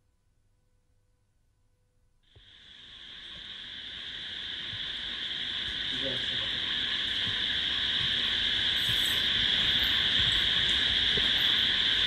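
Near silence for about two seconds, then a steady, high-pitched chorus of crickets fades in and grows louder over the next few seconds.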